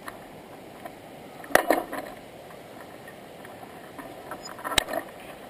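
Steady rushing background noise, broken twice by short clusters of sharp clicks and knocks: about a second and a half in and again near the end.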